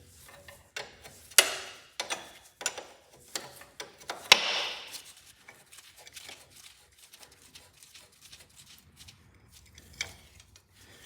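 An 11/16 wrench working on the tractor's JIC hydraulic line fittings: irregular metal clicks and light taps, with a sharper knock about a second and a half in and another just after four seconds, the clicks thinning out in the second half.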